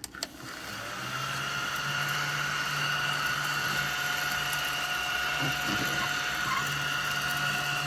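Small battery-powered desktop vacuum cleaner (ODISTAR mini table sweeper) switched on, its motor whine building up over the first couple of seconds and then running at a steady pitch.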